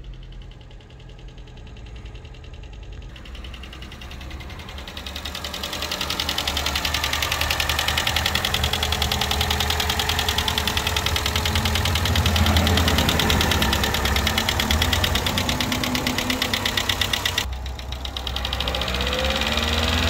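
2011 Chevy Cruze LTZ's 1.4-litre turbocharged four-cylinder engine idling with a rapid, even ticking from the top of the engine. It is briefly revved near the end.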